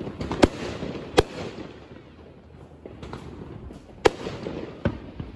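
Aerial fireworks bursting: four sharp bangs, two close together near the start and two more about four seconds in, with smaller pops and crackle between them.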